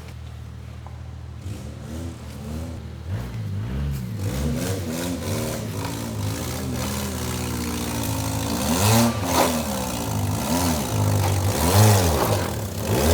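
Car engine revving up and down over and over, with its pitch rising and falling in repeated surges, as a car works its way over rough off-road ground. The revs start a few seconds in and are loudest near the end.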